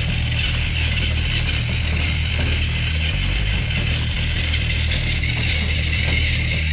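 Battery-powered Plarail toy train gear motors whirring with a steady, rattling, ratchet-like gear clatter. The engines are under load, pushing against each other on plastic track.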